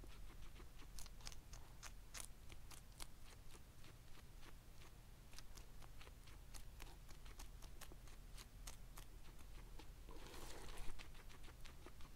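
Guinea pig chewing a leafy green close up: a steady run of crisp little crunches, several a second. Near the end, a louder rustle for about a second.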